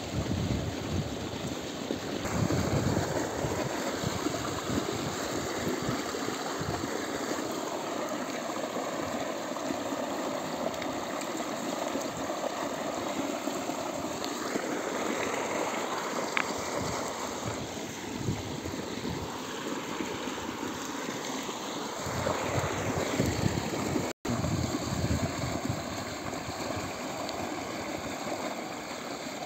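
Steady rushing of water flowing in an irrigation channel.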